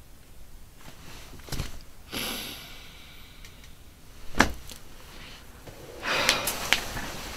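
Quiet handling sounds in a small room: a breathy rush about two seconds in, then a single sharp knock a little past four seconds, then rustling with a few small clicks near the end.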